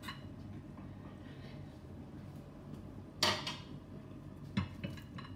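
A metal utensil knocking against metal dishware: one sharp clank with a short ring about three seconds in, a softer knock about a second later, over a low steady hum.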